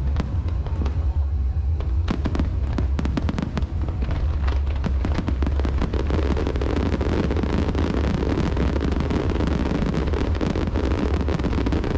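Fireworks display with sharp bangs and crackling. About halfway through, the crackle thickens into a dense, continuous barrage.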